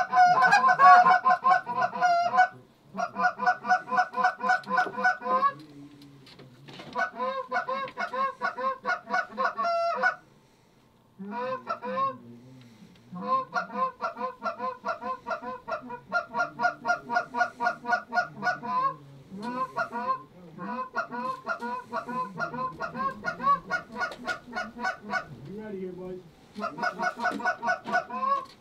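Canada goose honks and clucks in fast, evenly paced runs of several notes a second, broken by short pauses, with a near-silent lull about ten seconds in.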